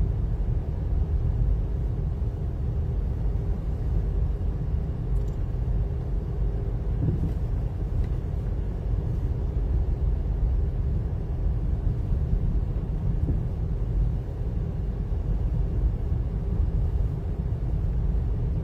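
Car driving along a town street, heard from inside the cabin: a steady low rumble of engine and tyres.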